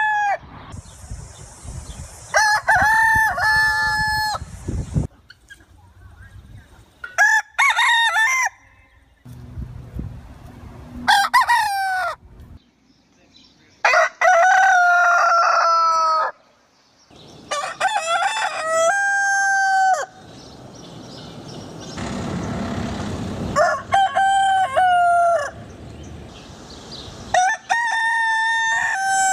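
Roosters crowing again and again, about eight full cock-a-doodle-doo crows spaced a few seconds apart, one of them held longer than the rest.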